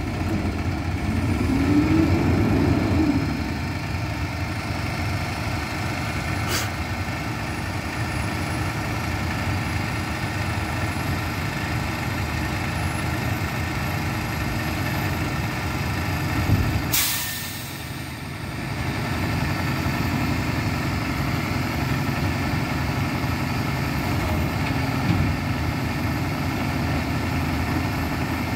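Front-loading garbage truck's diesel engine running steadily at idle, briefly revving up and back down about two seconds in. A short sharp air-brake hiss comes a little past halfway.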